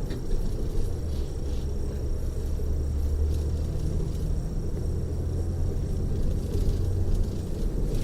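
Steady low rumble of a touring coach cruising on the freeway, heard from inside the passenger cabin: engine and road noise.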